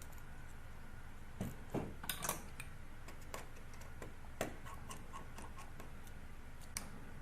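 Scattered small clicks and ticks of a Phillips screwdriver working tiny screws out of an iPhone 8 Plus's loudspeaker bracket, with a cluster of clicks about two seconds in and single ones after that, over a low steady hum.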